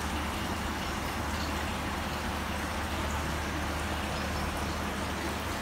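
Steady rush of water flowing in a fish-hatchery tank, with a low steady hum beneath it.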